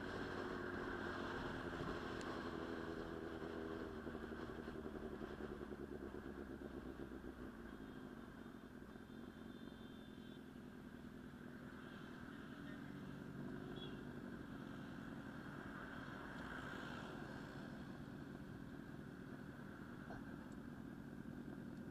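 Inline-four sport motorcycle engine running steadily, its sound dipping a little in loudness midway and building again toward the end.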